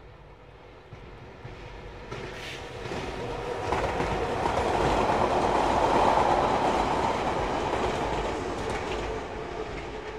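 A train passing. Its running noise grows louder to a peak about six seconds in, with a few sharp clanks along the way, then fades away.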